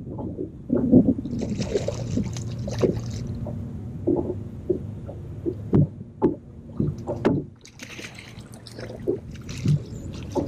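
Water lapping and splashing around a bass boat while a hooked bass is fought to the boat and netted. There are two spells of splashing, one early and one near the end, and a few sharp knocks about two-thirds of the way through.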